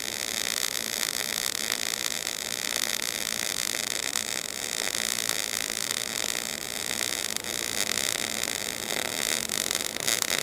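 MIG (gas metal arc) welding arc running steadily with a continuous crackling hiss as a cap pass is laid uphill on a vertical groove-weld plate.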